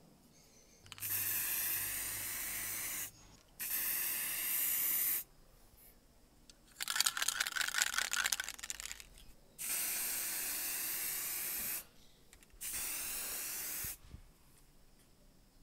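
Aerosol spray paint can spraying in four steady bursts of hiss, each lasting a second and a half to two seconds. Between the second and third bursts the can is shaken, its mixing ball rattling rapidly for about three seconds.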